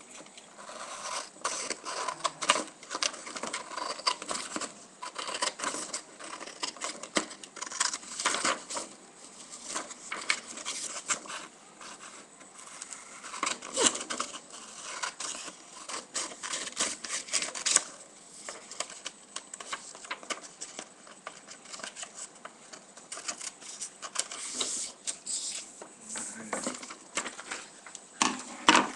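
Scissors cutting a sheet of paper in many short irregular snips, with the paper rustling as it is handled.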